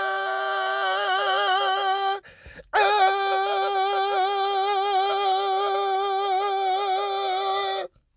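An animal's long, voice-like call held on one steady pitch with a slight waver, given twice: the first breaks off about two seconds in, and after a short pause the second lasts about five seconds and stops just before the end.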